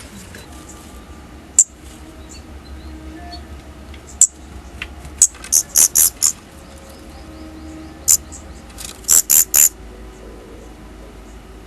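Daurian redstarts giving short, sharp, high-pitched calls, some single and some in quick runs of three or four, about a dozen in all. Faint music plays underneath.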